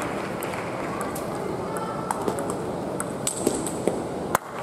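Table tennis balls clicking sharply off bats and tables at irregular intervals, a few close together after about three seconds, over a steady background of voices.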